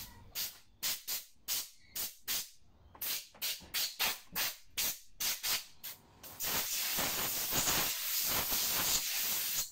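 Compressed-air blow gun on an air hose blowing dirt off a Victa two-stroke mower engine around its carburettor. First come about twenty short puffs in quick succession, about four a second, then a long steady blast of hissing air from about six seconds in.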